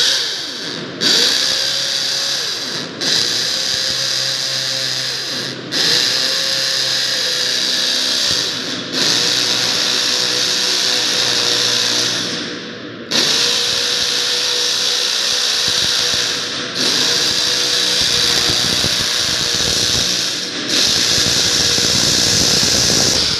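KYK electric hammer drill boring into poured concrete, run in a string of bursts of two to four seconds with brief pauses between them. The motor whine rises each time it spins back up.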